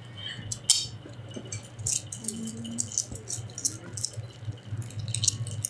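Giant panda crunching and chewing its food: a quick, irregular run of dry, crackly crunches.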